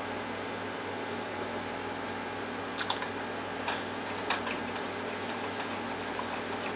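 A wire whisk stirring soup in a stainless steel saucepan: a few light clicks and scrapes against the pot from about three seconds in, then quick, faint, regular ticks of whisking. A steady hum lies under it.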